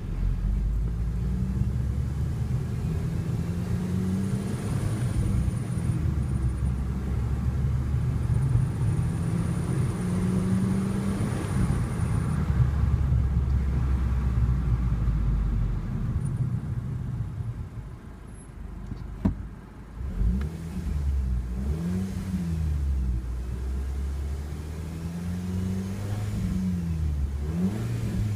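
Volkswagen Golf Mk5 GTI's turbocharged 2.0 TFSI four-cylinder revving up and down repeatedly. A thin, very high-pitched whistle sounds over the engine for several seconds in the first half; this is the weird whistle noise the car is making.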